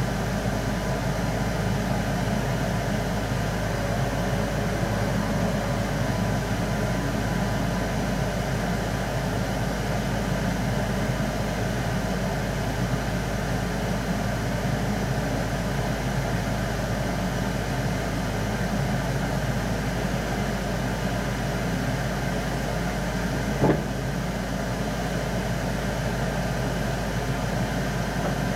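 Keihan electric train running at speed, heard from inside the carriage as a steady rumble of wheels and running gear. One sharp knock comes late on.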